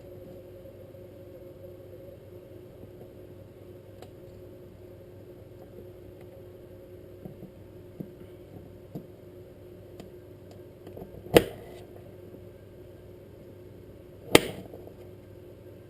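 Knife chopping through persimmons: a few light taps, then two sharp chops about three seconds apart in the second half.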